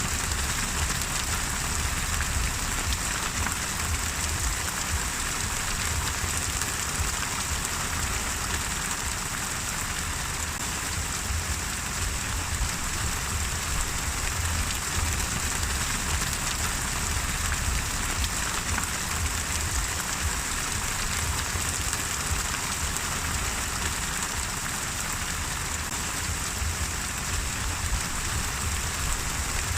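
Steady rain falling on a surface: a continuous hiss with many small drop patters and a low rumble underneath, unchanging throughout.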